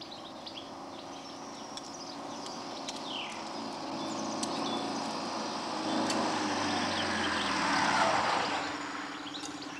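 Citroën Dyane's air-cooled flat-twin engine running and its tyres on a gravel road as the small car approaches. It grows louder to a peak about eight seconds in, with a falling pitch as it passes close.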